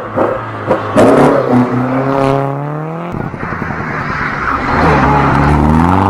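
Mitsubishi Lancer Evolution X rally car's turbocharged four-cylinder engine revving up hard after a sharp crack about a second in, cutting off abruptly as the driver lifts for the bend, then rising again as the car accelerates out of the corner past close by.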